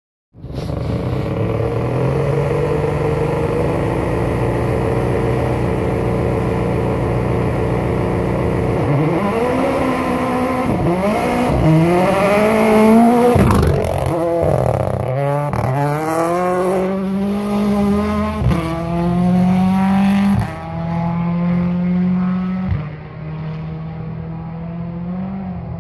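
Rally car engine held at a steady note, then about nine seconds in accelerating hard on a gravel stage, the revs climbing and dropping through a string of quick gear changes. It is loudest as it comes past and keeps changing up as it pulls away.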